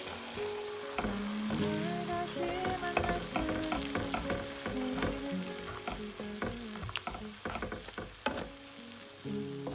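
Onion, tomato and spice masala sizzling as it fries in oil in a nonstick pan, with a spatula stirring and scraping through it in irregular clicks and scrapes.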